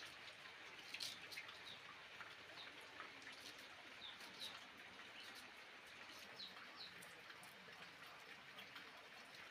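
Near silence: faint crisp snips of a knife shredding cabbage by hand, about a second in and scattered after. Faint bird chirps come now and then in the background.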